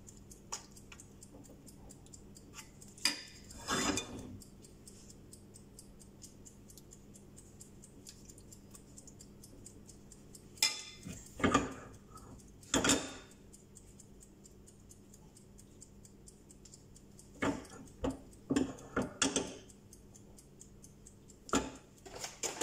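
Metal spoon clinking and scraping against a stainless saucepan, a foil tray and glass baking dishes in several short clusters, with a faint steady ticking underneath.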